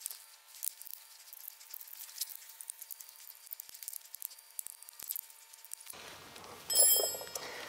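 Light clicks and ticks of small screws, nuts and a screwdriver as a small electric fan is screwed to a metal bracket by hand, with a louder, brief scrape near the end.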